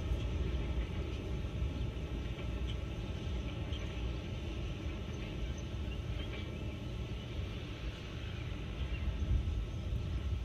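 Steady low rumble of a freight train in the distance, with a few faint bird chirps over it.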